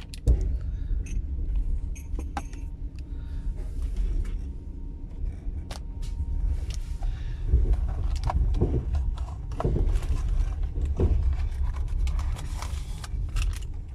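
Passenger train in motion heard from inside the carriage: a steady low rumble, with scattered light metallic clinks and rattles on top.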